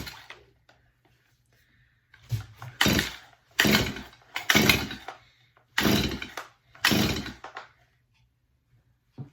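Chainsaw's recoil starter pulled about six times in quick succession, roughly one pull a second after a short pause, cranking the engine over with a compression gauge in the spark plug hole to take a compression reading.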